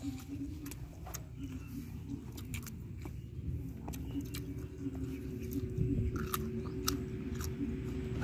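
A person chewing and biting crunchy food close to the microphone, with many short sharp crunches throughout. The food is deep-fried fish and raw cauliflower.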